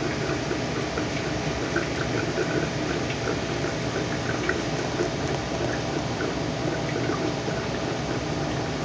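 Small freshwater aquarium with its water bubbling and trickling steadily, with many small irregular pops.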